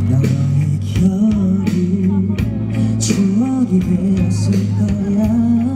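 Live pop-rock band playing: a male voice sings a wavering melody over electric bass, guitar and drums, with a steady low bass line and regular drum hits.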